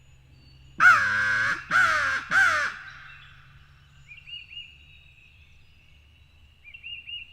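A crow cawing three times in quick succession, harsh and loud, the first caw the longest. Faint, short bird chirps follow later.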